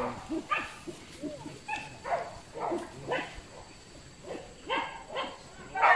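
Hunting dogs barking and yelping in many short, separate calls.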